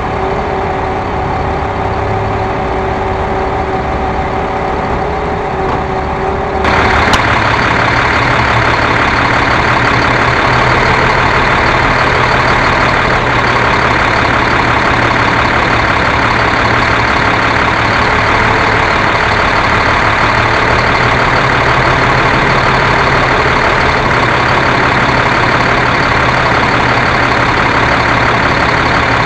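Caterpillar 3126 diesel engine of a crane truck idling steadily. About seven seconds in it suddenly gets louder and brighter, then runs on evenly.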